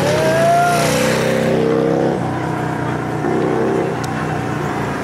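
Cruiser motorcycle engines running as the bikes ride past, with a short rise in pitch about half a second in as one revs, then a little quieter after about two seconds.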